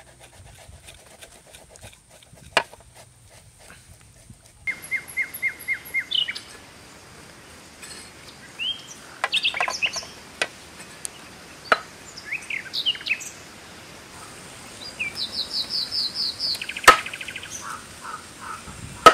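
Birds calling and chirping: quick runs of repeated notes, short rising chirps and a fast trill, starting about five seconds in. A single sharp knock comes near the end.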